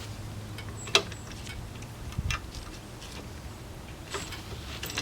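Scattered sharp metal clicks and clinks of a logging chain being handled and hooked on the log arch, the sharpest about a second in, with a dull thump a little after two seconds, over a low steady hum.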